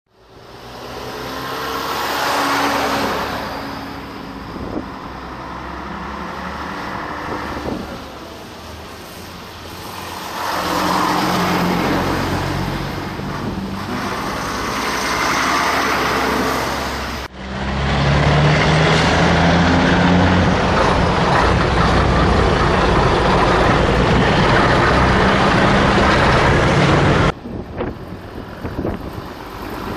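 Vintage diesel trucks driving past one after another, each engine swelling in loudness as it nears and passes. The sound breaks off sharply twice, and the loudest, steadiest engine run is in the second half.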